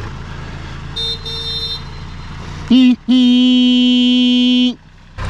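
A horn blowing one short toot and then one long steady blast. Before it, a small engine idles with a low hum.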